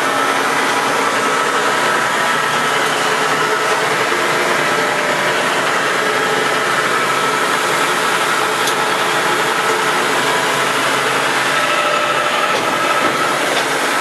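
1969 Acme-Gridley RA6 six-spindle automatic screw machine running: a steady, dense mechanical noise with several steady tones.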